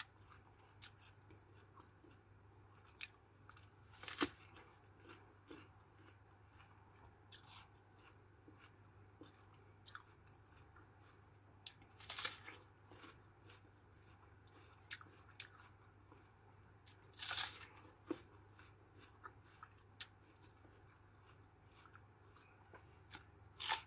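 Crisp bites and chewing of a wax apple (makopa), heard close up: quiet mouth clicks throughout, with four louder crunches spread through, the last near the end.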